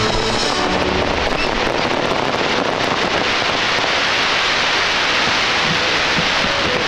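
Fireworks crackling densely overhead: a continuous mass of tiny pops from crackling stars and comets bursting.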